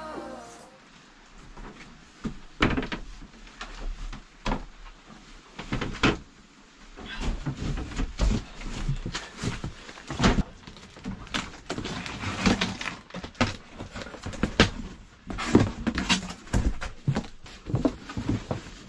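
Cardboard shipping box being handled and opened: scattered knocks and thumps with cardboard rustling and scraping, and near the end an inner product box is lifted out. The tail of a pop song cuts off in the first second.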